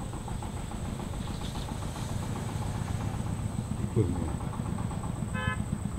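A steady low motor drone, running evenly throughout, with a brief pitched call near the end.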